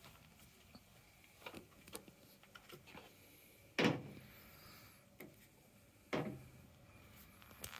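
Handling knocks and clicks as a spirit level is set against a Dobsonian telescope tube. Two louder sharp knocks come about four and six seconds in, with smaller clicks between.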